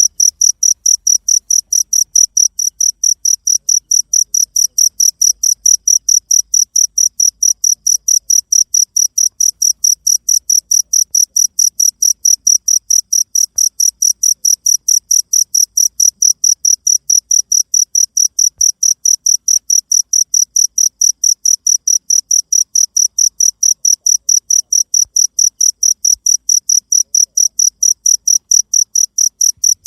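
Cricket chirping: a high-pitched, very even pulse of about four chirps a second that never changes.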